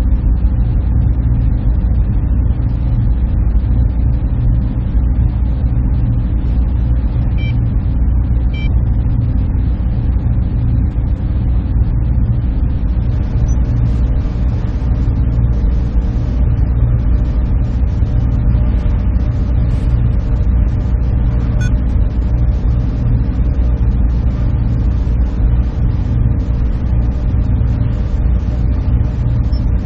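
Server room ambience: machines running with a steady, unchanging low hum.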